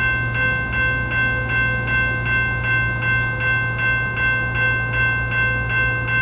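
Railroad grade-crossing warning bell ringing steadily, about two and a half strokes a second, with the crossing signals active for an approaching train. A steady low rumble lies underneath.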